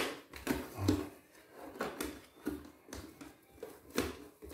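Plastic battery cover being fitted onto the underside of a robot vacuum cleaner: a series of irregular plastic clicks, taps and knocks as it is set in place and pressed down.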